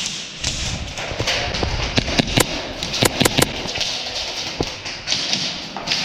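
Airsoft gunfire: a quick run of sharp snaps about two to three and a half seconds in, with scattered thuds and gear and footstep noise around them.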